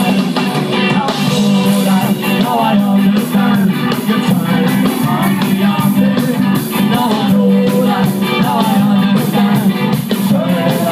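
Rock band playing live: electric guitars and a drum kit, with a singer's voice over them.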